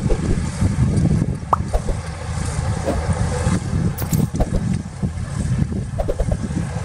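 Heavy earthmoving machinery running: a diesel engine's low rumble with a few sharp metallic clanks, the clearest about four seconds in.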